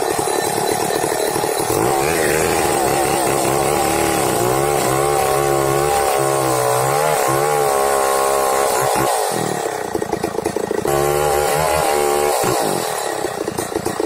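Large two-stroke chainsaw with a long bar cutting into a thick tree trunk at full throttle, its pitch wavering as the chain bogs under load. The engine briefly drops back about nine seconds in and again near the end, then revs up into the cut again.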